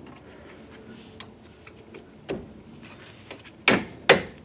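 A mallet strikes a wrench on a rusty brake caliper bolt twice near the end, sharp knocks about a third of a second apart, to break the bolt loose. Before that only a few faint clicks.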